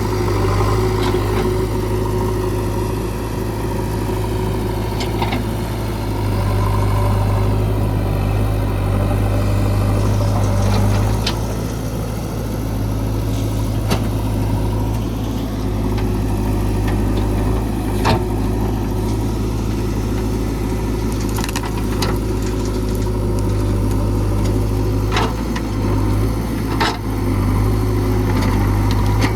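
JCB 3DX backhoe loader's diesel engine running steadily, with several short sharp knocks or cracks at uneven intervals while it works clearing trees.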